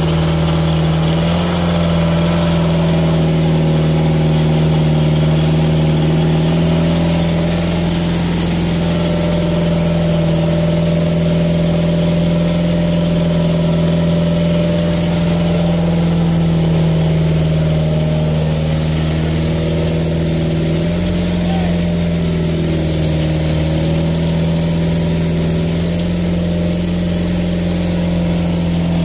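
Fishing boat engine running steadily, a constant hum whose pitch steps up and down a little now and then.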